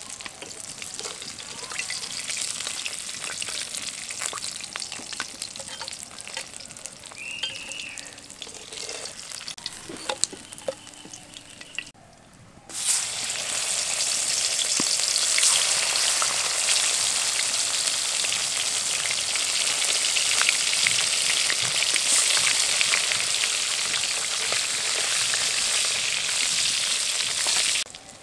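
Whole climbing perch (koi fish) sizzling as they fry in hot mustard oil in an aluminium kadai, with occasional clinks of a spatula against the pan. About twelve seconds in, after a brief drop, the sizzle becomes louder and denser and stays so.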